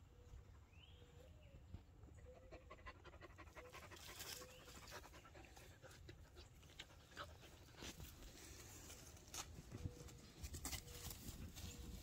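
Faint panting from a dog digging at a groundhog burrow, with short scratches of dirt being clawed loose.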